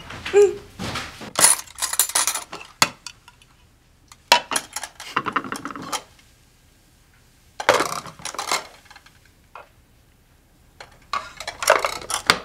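Light clinks and clatter of a lunchbox being unwrapped and opened, with the lid and containers knocking. The sound comes in several short bursts separated by quiet gaps.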